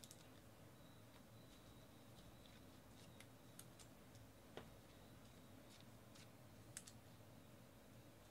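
Near silence: faint room tone with a few soft clicks and ticks from trading cards and foil card packs being handled.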